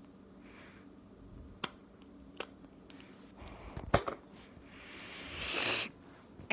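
Small plastic slime containers handled on a hard tabletop: a few sharp clicks and taps, the loudest about four seconds in. This is followed by a rising rush of noise that cuts off suddenly near the end.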